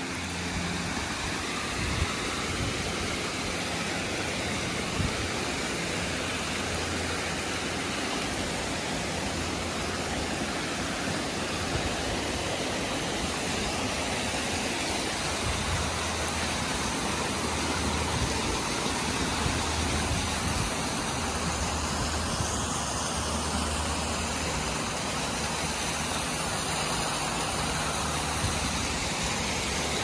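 Steady rush of a small waterfall and rocky creek, with an uneven low rumble on the microphone underneath.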